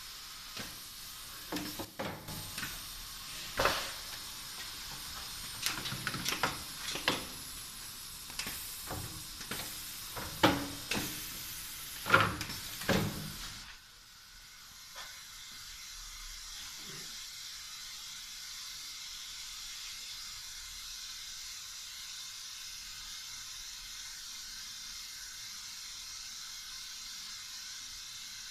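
Urban AKS 1200 double-head welding machine working, with a run of irregular sharp mechanical clacks and knocks over a steady hiss. After about 14 s the clacking stops and only the steady hiss goes on.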